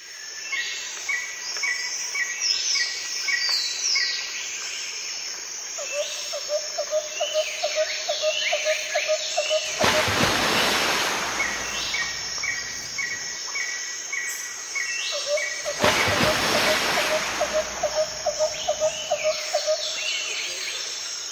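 Birds chirping and calling over one another, with a repeated short note about three times a second and a low rapid trill twice. Two brief rushing noises come about ten and sixteen seconds in.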